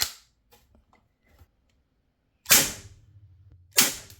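Walther PPK/S CO2-powered 4.5 mm steel BB air pistol firing: two sharp shots a little over a second apart, about halfway through, with the fading end of an earlier shot at the start.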